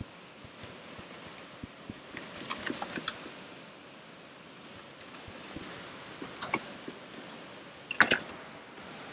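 Small hard clicks and rattles of gear being handled inside a kayak's storage hatch, in scattered bunches, the loudest clatter about eight seconds in.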